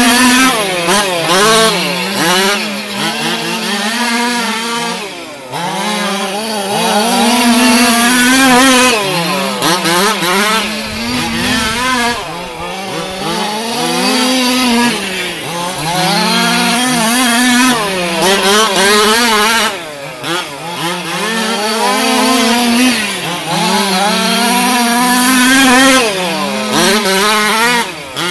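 Small two-stroke engines of 1/5-scale HPI Baja RC cars running laps. They rise in pitch on the straights and drop off into the turns about every three to four seconds.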